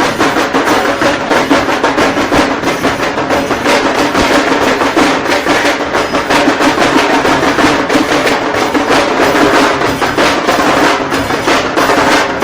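Procession drums beaten hard in a fast, continuous rhythm, dense drum strokes with no letup.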